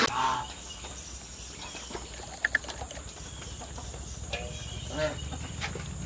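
Quiet outdoor ambience with a steady high insect drone. There are two brief high chirps about two and a half seconds in and a couple of soft low calls near the end.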